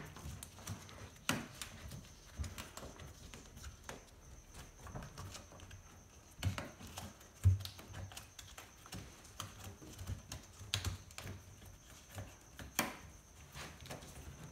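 Irregular soft clicks and taps with some rubbing, from an LG front-loader's rubber door seal being pressed by gloved hands onto the lip of the machine's front cover. The louder taps come a few times, far apart.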